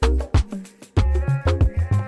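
Background music with a steady beat: deep bass kicks about twice a second, crisp percussion hits and sustained melodic notes.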